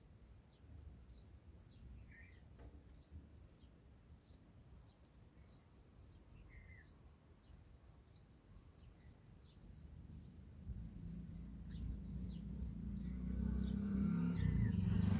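Faint background of small birds chirping in short, scattered calls, then a low vehicle engine rumble that grows steadily louder over the last few seconds.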